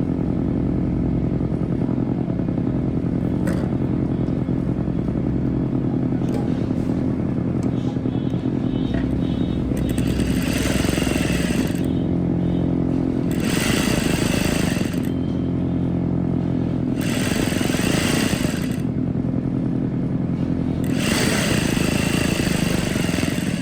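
Electric sewing machine stitching a seam in four runs of a second or two each, over a steady motor hum.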